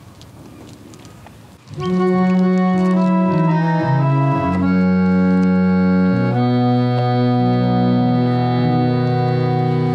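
Reed organ (pump organ) playing slow, sustained hymn chords as the introduction to a hymn. It starts about two seconds in, after a quiet moment.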